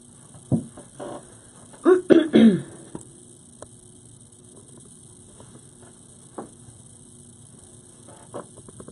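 Camera being lifted and repositioned: handling knocks and faint clicks over a steady low hum, with a brief loud non-word vocal sound about two seconds in.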